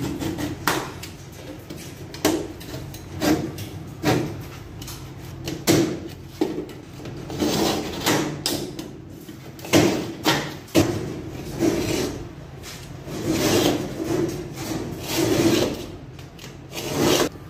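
Utility knife blade scraping into a fiber cement (Hardiflex) board, a string of irregular scoring strokes about one a second, to cut an opening without a grinder.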